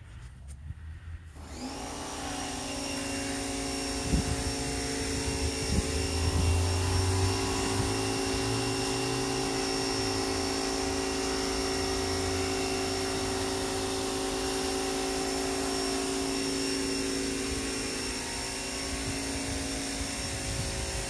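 A machine motor starts about one and a half seconds in, rising briefly in pitch as it spins up. It then runs steadily with a hum and a high whine.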